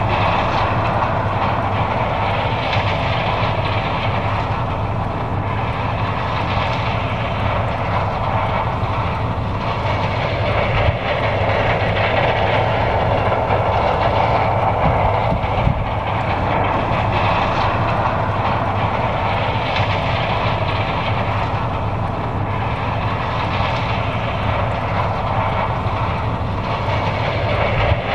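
John Deere 9550 combine harvester running steadily while harvesting corn: a continuous mechanical drone over a constant low hum, its rushing upper layer slowly swelling and easing.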